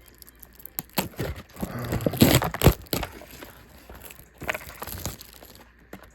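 Foil booster-pack wrapper crinkling and rustling as it is handled, loudest about two seconds in, with a shorter rustle near the five-second mark.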